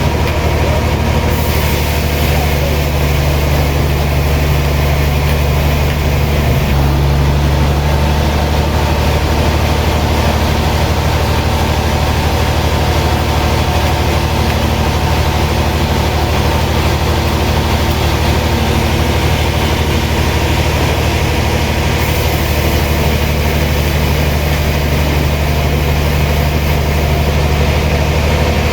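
Heavy sawmill machinery running steadily with a constant low hum, with a slight change in its tone a few seconds in.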